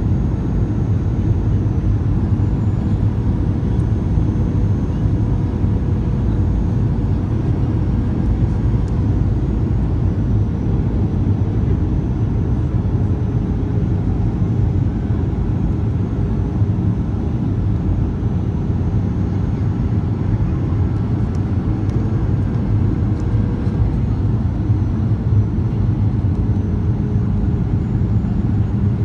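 Steady engine and airflow noise of a passenger airplane in flight, heard inside the cabin: an unbroken low drone with a faint steady hum over it.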